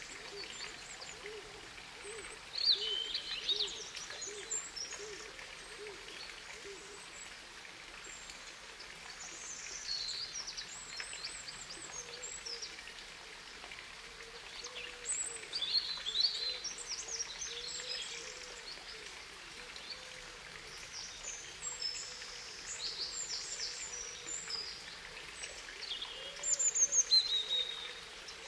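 Birds chirping and trilling in several bursts over a steady background hiss, with a low call repeated underneath, about two a second in the first few seconds.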